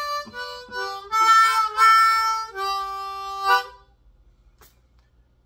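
Solo harmonica played with cupped hands: a quick run of short notes, then longer held notes and chords, stopping just under four seconds in.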